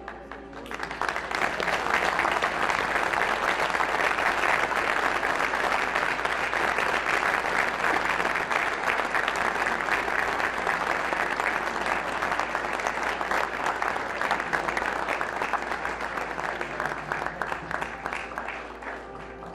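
Audience applauding: the clapping swells about a second in, holds steady, and fades away near the end.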